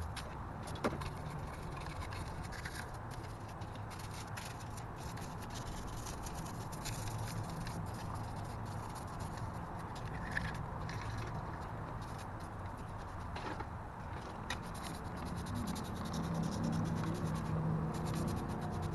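Hand brush scrubbing grime off an engine block: a continuous scraping rub, with a few light knocks.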